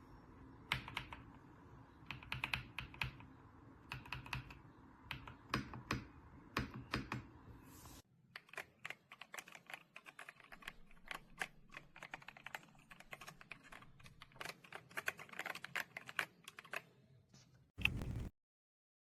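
Typing on a mechanical keyboard: a fast, irregular patter of key clicks and clacks. About halfway through, the low background hum drops out while the typing continues. Near the end there is a short, loud thump, then the sound cuts off.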